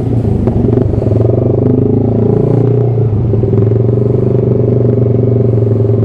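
Yamaha R15 V3's single-cylinder engine idling steadily.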